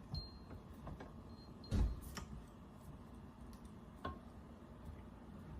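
A few scattered light metal clicks and ticks of coilover parts being handled and fitted, with one dull thump about two seconds in.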